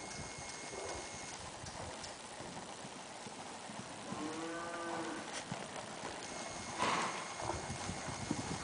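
Dull hoofbeats of a horse trotting on the sand footing of an indoor arena. About halfway through, a drawn-out call rising then falling in pitch lasts about a second, and a short loud hiss-like burst follows near the end.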